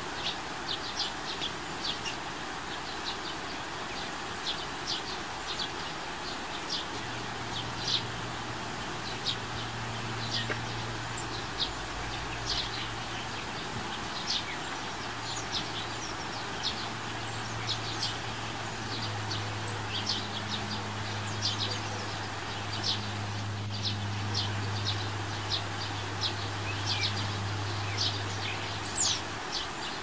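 Steady rush of river water with many short, high bird chirps over it, several a second, and a sharp falling whistle near the end. A low steady hum comes in about seven seconds in and stops just before the end.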